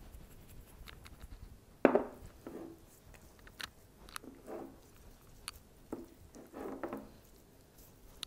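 Hands working oil and dried basil into raw salmon steaks: soft wet squishes and small clicks. There is one sharp knock about two seconds in, the loudest sound.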